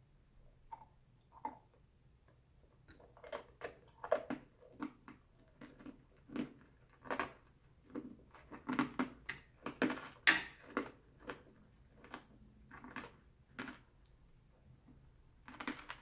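Close-up chewing of candied fruit, the hard sugar candy coating cracking and crunching in quick, irregular bites. The bites are sparse at first and busiest in the middle, with the loudest crunch about ten seconds in.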